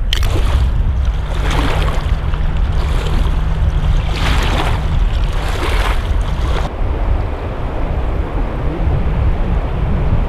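Wind buffeting the microphone with a steady low rumble, over the rush of a shallow river; hissy gusts come and go and drop away about two-thirds of the way through.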